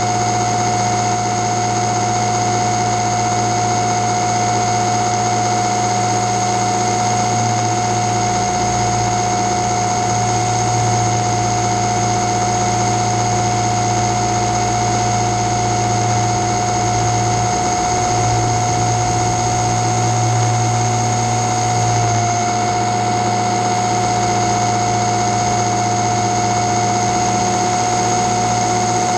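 Multirotor drone's electric motors and propellers running with a steady whine, picked up by its own on-board camera; the pitch dips slightly about three-quarters of the way through.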